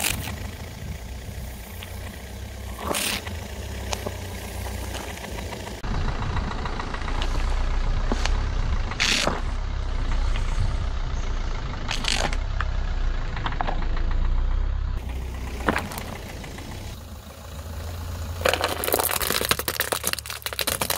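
A car's engine runs at a low idle as its tyre rolls slowly over plastic containers, crushing them. Several separate sharp cracks and pops are spread through, and a dense crackling crunch near the end comes as a stack of plastic pieces is flattened.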